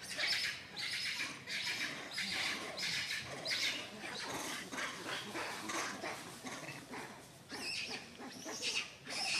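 Long-tailed macaques vocalizing: a run of short, rough squeaks and grunts, two or three a second.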